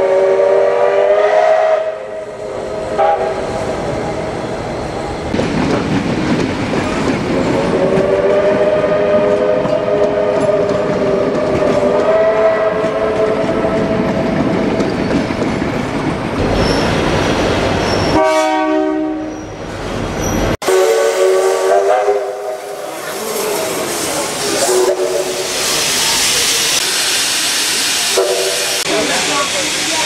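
Steam locomotive chime whistles, starting with R class R711's, sounding several long blasts of a few tones together, some held for several seconds, over steam hiss and running train noise. Around two-thirds of the way through, a different single-note whistle or horn sounds for about two seconds before a sudden cut.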